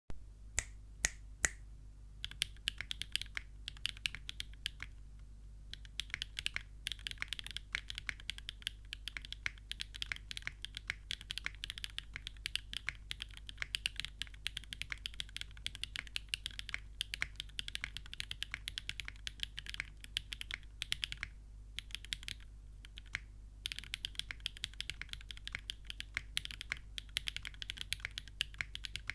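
Mechanical keyboard being typed on: a Machina Cloudnine with aluminium plate, Gateron x Siliworks Type R tactile switches and GMK Rewind keycaps. A few single keystrokes, then a steady run of fast typing with two brief pauses.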